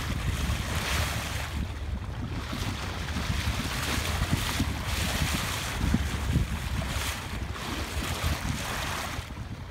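Wind buffeting the microphone over choppy water lapping and slapping against a small boat's hull, swelling and easing in uneven gusts.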